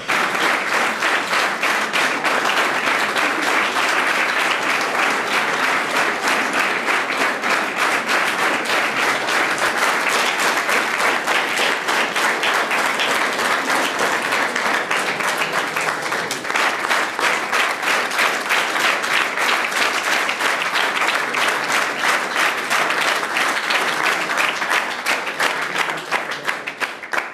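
A crowd applauding, many hands clapping in a long, steady round of applause that cuts off suddenly near the end.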